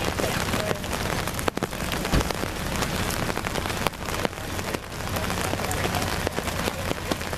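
Steady rain falling, with many sharp individual drops pattering on open umbrellas.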